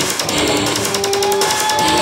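Live rock band playing an instrumental passage: electric guitars and bass over an electronic drum kit keeping a steady beat, with a long high held note coming in about halfway through.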